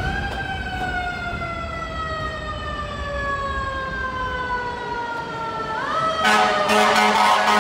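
R160B subway train with Alstom propulsion braking into the station: its motor whine, several tones together, slides steadily down in pitch as it slows. Near the end, as the train halts, a louder mix of hissing and steady humming takes over.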